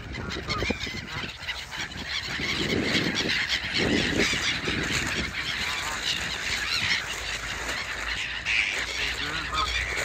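Flock of Canada geese honking, many calls overlapping throughout.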